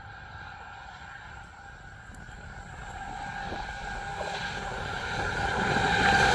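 Three SCT Logistics diesel locomotives approaching at the head of a freight train, their engine sound growing steadily louder.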